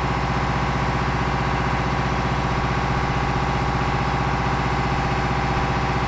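An engine running steadily at constant speed, an even mechanical drone with a fine regular pulse.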